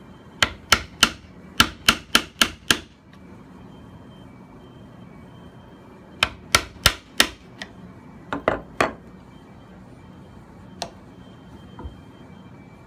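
Hammer striking a chisel held upright in hardwood, chopping in quick runs of sharp blows: about eight at the start, then groups of four and three, then two single light taps.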